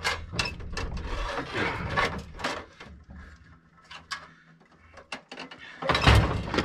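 Metal knocks, clanks and scraping as an Onan engine is shifted and worked loose in a Bolens garden tractor's frame, with a loud clunk about six seconds in.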